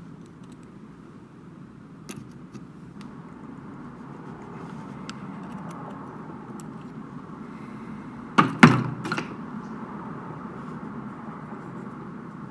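Small steel ratchet parts handled at a workbench: a few light metallic clicks, then a quick run of sharp knocks about two-thirds of the way through, over a steady low background hum.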